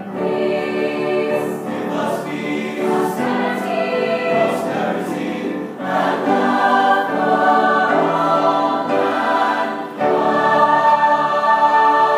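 High school choir singing, many voices together in sustained chords. About ten seconds in the sound steps up suddenly louder into a long held chord.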